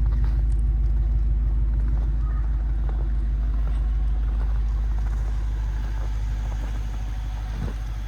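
Dodge Charger R/T's 5.7-litre HEMI V8 idling steadily just after a cold start in the snow. The rumble gradually gets quieter.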